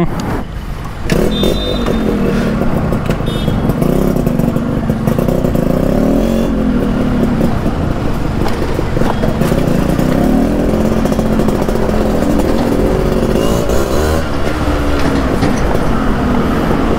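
A Yamaha RX100's 98cc air-cooled two-stroke single, breathing through an aftermarket expansion chamber that is not a tuned ('calculated') one, pulling away about a second in. The motorcycle is then ridden along, its engine note rising and falling as the throttle opens and closes.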